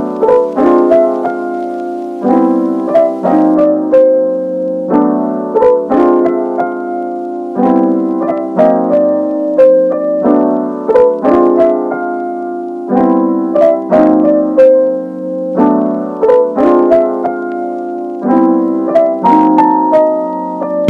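Background music: a piano playing a gentle, repeating pattern of chords and melody notes, with no speech or other sounds.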